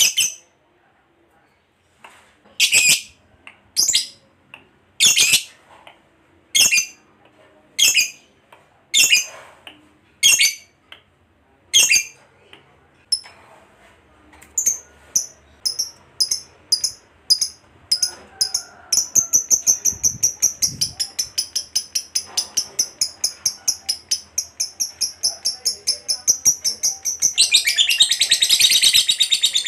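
Lovebird calling: single harsh, high shrieks about a second apart, then quickening into a long, fast, unbroken chattering trill (the 'ngekek' prized by keepers) from about two-thirds of the way through. The trill grows denser and louder near the end.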